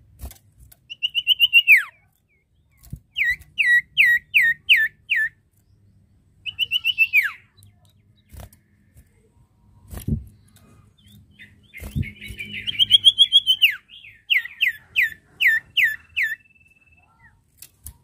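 Caged iora (sirtu/cipoh) calling with loud 'nyiul' whistles: fast runs of about six downward-slurred notes, alternating with quick trills that end in a long falling slur. It is the call the bird gives to challenge a rival. A few sharp knocks fall between phrases, the loudest about ten and twelve seconds in.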